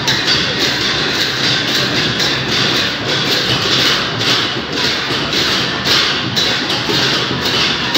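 Steady loud din of a huge street crowd, a dense wash of noise with no single voice or instrument standing out.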